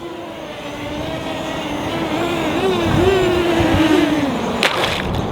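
SwellPro Spry quadcopter drone's propellers whining, the pitch wavering up and down as the motors change speed under steering, growing louder as it comes closer. There is a brief sharp noise near the end.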